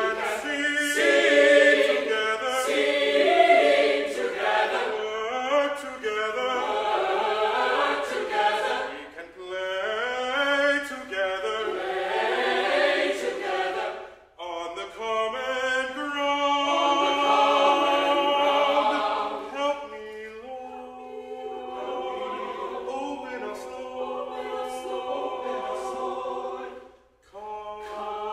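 Mixed choir singing with a baritone soloist, in long phrases broken by short breaths, with a brief full stop near the end.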